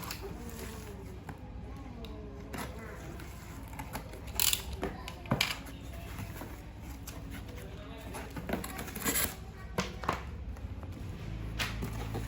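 Background music with a singing voice, broken by a few short, sharp knocks and rustles from handling.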